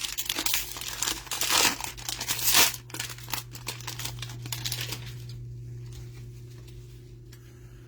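A trading-card hanger box being torn open: crinkling and tearing of its packaging, loudest about two and a half seconds in and thinning to light rustling after about five seconds. A low steady hum runs underneath.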